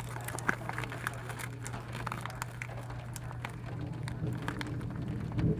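Rain dripping and pattering in irregular sharp ticks over a steady low hum, with a brief low thump near the end.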